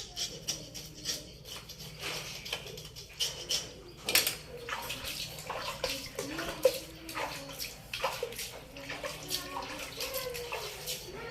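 A cat eating rice: irregular wet smacking and chewing clicks, several a second.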